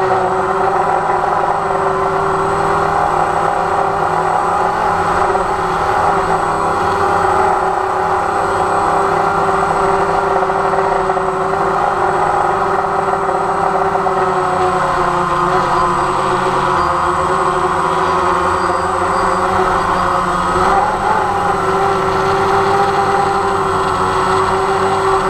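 DJI Phantom quadcopter's motors and propellers whining steadily, the pitch wavering a little as the drone manoeuvres, heard from a camera on the drone itself. Strong wind buffets the microphone underneath.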